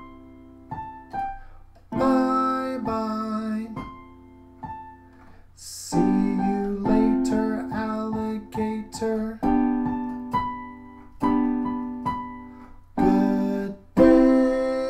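Piano keyboard accompaniment to a children's goodbye song: phrases of short notes and chords with brief gaps between them.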